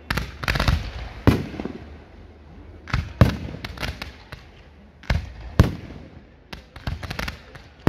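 Fireworks exploding: about a dozen sharp bangs at uneven intervals, some in quick clusters, each trailing off in an echo.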